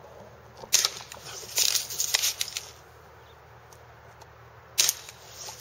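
Daisy Red Ryder lever-action BB gun fired twice, about four seconds apart, each shot a sharp pop. After the first shot there is a second or so of clicking and rasping as the cocking lever is worked.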